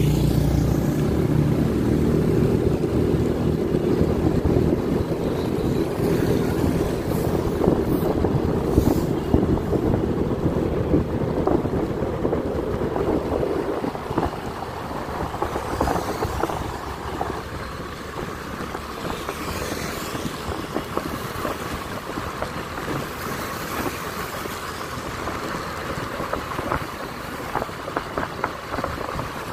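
Motor vehicle engine running while on the move, with wind rushing over the microphone. The engine is strongest in the first few seconds, and everything grows quieter about halfway through.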